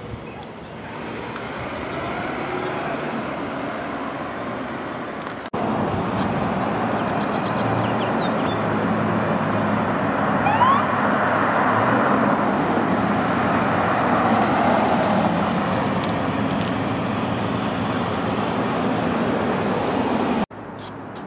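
Road traffic noise from vehicles driving by, with a sudden jump to a louder stretch about five seconds in and a drop near the end. A brief rising tone sounds about halfway through.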